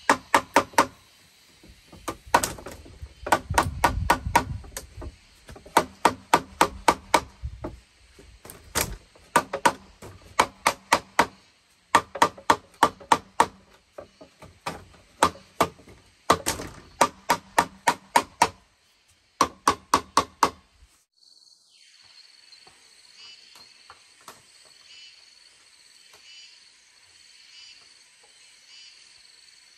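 Quick runs of sharp, ringing tool blows on bamboo, several a second, in bursts separated by short pauses. About two-thirds of the way through they stop abruptly, and a chorus of insects and frogs takes over, with a steady high trill and pulsing calls.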